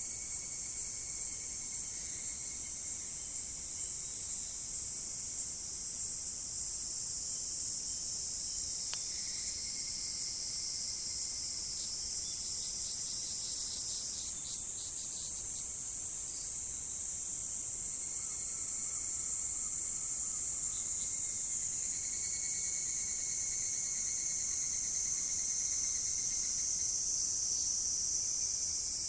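Dense chorus of crickets and other insects, a continuous high shrill hiss, with single insects trilling at lower pitches that come and go, and a fast pulsing call in the middle.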